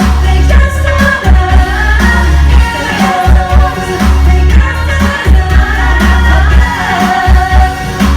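Live 80s pop music from a stage show: a singer carries the melody over a loud, pulsing bass beat.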